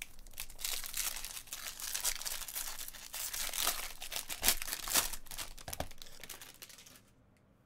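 Bowman Chrome trading-card pack wrapper crinkling and crackling as it is torn open and handled, with a few sharper crackles in the middle, dying away near the end.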